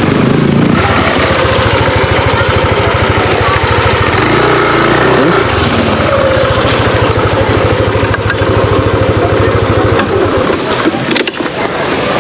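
Yamaha scooter's single-cylinder engine running on the move, with a brief rise in engine speed about four seconds in. It drops away to a lower idle as the scooter comes to a stop near the end, followed by a few sharp clicks.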